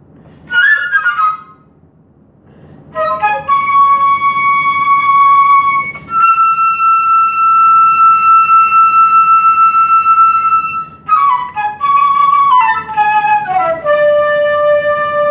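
Flutes playing a slow psalm tune: a short run of notes about half a second in, a pause, then long sustained notes with one held for about five seconds in the middle. Near the end a falling line steps down to a final held lower note.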